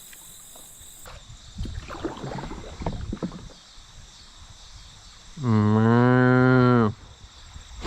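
A cow mooing once: one long, low, steady call about a second and a half long, starting about five and a half seconds in.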